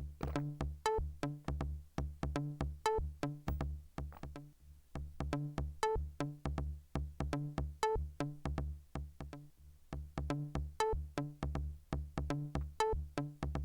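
Electronic intro music: short, quickly fading synth notes, about four a second, over a steady bass beat, in a phrase that repeats.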